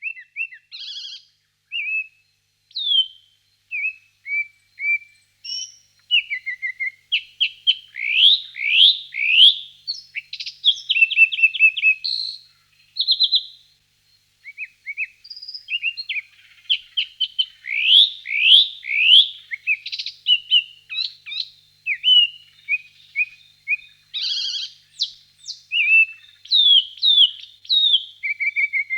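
Birds singing: a continuous, varied run of short chirps, whistled notes and quick rising trills, with hardly a pause.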